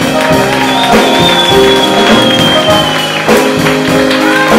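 Live small-band music: an upright bass and percussion under sustained held notes, with a long high note that sinks slightly in pitch through the middle.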